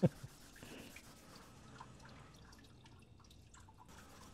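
Faint wet rubbing of a hazuya, a thin whetstone chip backed with washi paper, worked by fingertip over the flat of a knife blade, with a few light ticks. This polishing step turns the steel white.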